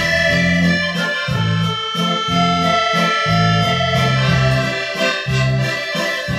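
Background instrumental music led by an accordion, with held chords over a bass line that changes note about twice a second.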